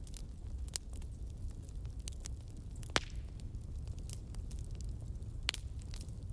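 Wood fire crackling: irregular sharp pops and snaps over a steady low rumble of flames, with the loudest pop about halfway through.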